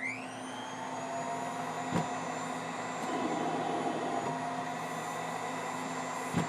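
Cough Assist (mechanical cough-assist machine) blower spinning up with a rising whine, then running steadily and gradually getting louder as it moves air through the mask for an assisted-cough set. Clicks about two seconds in and again near the end.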